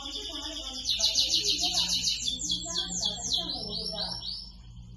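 Domestic canary singing a continuous song. About a second in it breaks into a loud, fast rolling trill, which gives way to a slower run of swooping, falling notes before it eases off near the end.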